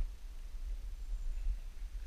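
Low, uneven rumble of wind and movement on a body-worn action camera's microphone, with no distinct event.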